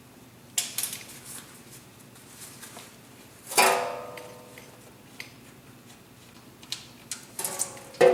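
Metal clinks of a wrench working the oil drain plug under the car. About three and a half seconds in comes a sharp metallic clang that rings for about half a second. Another ringing clink follows near the end.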